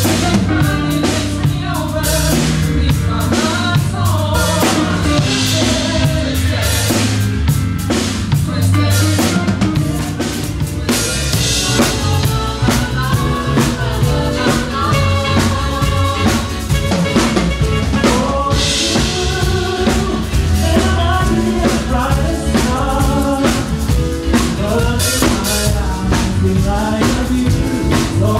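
Live band playing with a drum kit keeping a steady beat under bass guitar and keyboards, and a saxophone carrying a melodic line.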